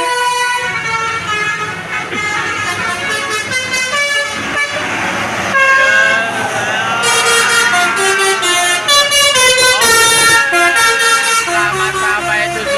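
Indonesian bus "telolet" multi-tone air horn playing a quick melody of stepped notes, changing pitch every fraction of a second, with the bus engine running underneath.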